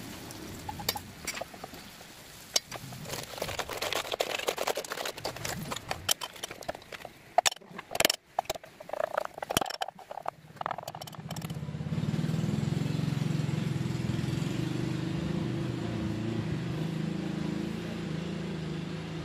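A kitchen knife chopping on a wooden cutting board, a run of sharp irregular knocks and clicks. About two-thirds of the way through, a steady low motor-like hum takes over.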